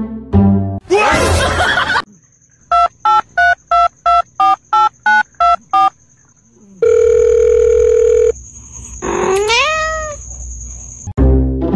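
A run of about ten short electronic beeps, about three a second, like a telephone ringing, then a held steady tone. Near the end comes a cat's meow that rises in pitch and then wavers.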